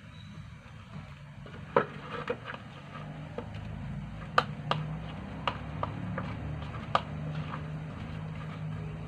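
A metal spoon stirring fishing bait in a plastic bowl, knocking against the bowl in a scattering of sharp irregular clicks, over a steady low hum.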